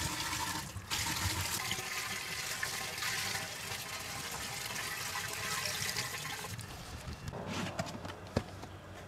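Water poured from a bucket through a funnel into a plastic bin reservoir, a steady splashing pour that stops about six and a half seconds in. Near the end, a few knocks from the bin's plastic lid being handled.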